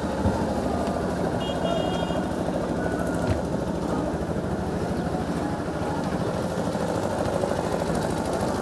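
Boat engine running steadily with a low, even drone, heard from on board.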